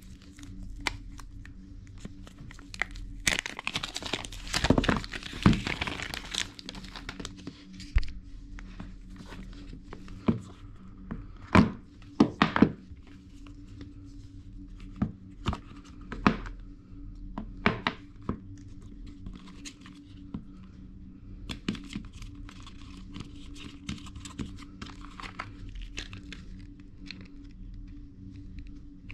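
iPhone box packaging being unwrapped and handled: a stretch of tearing and crinkling of the wrapping about three to seven seconds in, then scattered sharp clicks and knocks as the box lid and phone are handled, and softer rustling of paper packaging near the end.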